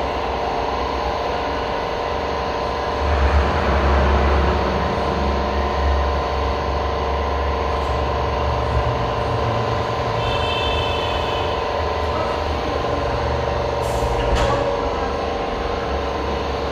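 Shop ambience dominated by a steady machine hum with several tones. A deeper low rumble joins about three seconds in and stops near the end, with a brief high beep about ten seconds in and a single click shortly after.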